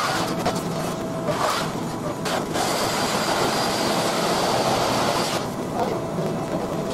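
Sped-up pulse MIG welding on an aluminum engine block, heard as a continuous noisy crackling hiss.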